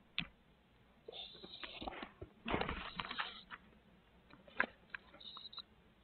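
Barred owl owlet moving in its tree-cavity nest: irregular scratching and rustling on the wood-chip litter, loudest about two and a half seconds in, with sharp clicks near the start and again after four seconds.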